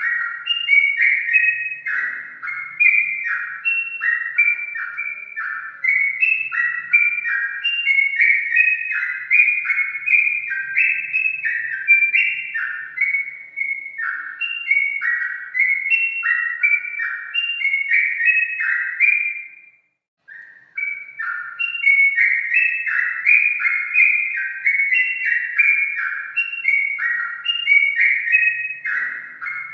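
Yellow-vented bulbul song: a continuous stream of quick, bubbling whistled phrases, broken by a brief pause about twenty seconds in.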